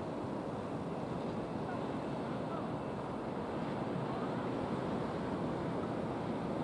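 Small waves washing onto a beach, with wind on the microphone: a steady rushing noise.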